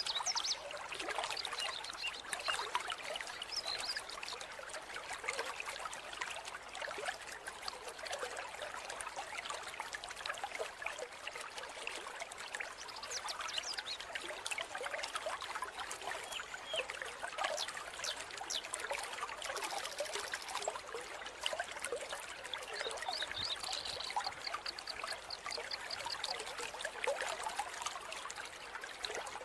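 Mountain stream water trickling and splashing steadily, a light busy sound with little low rumble. Near the end, a short run of high, evenly repeated chirps sounds over the water.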